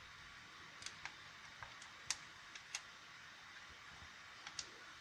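Scattered light clicks and taps, about nine at irregular intervals, over a faint steady hiss.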